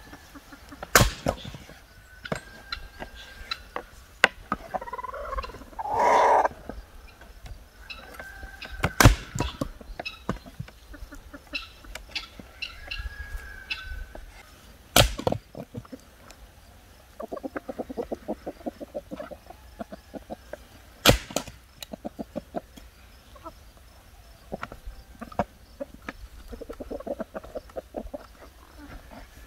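An axe splitting firewood on a wooden chopping block: four sharp chops several seconds apart. Chickens cluck and call between the chops.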